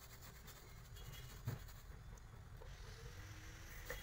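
Faint scratchy rubbing of a paintbrush being worked over a truck tyre, with one sharp knock about a second and a half in.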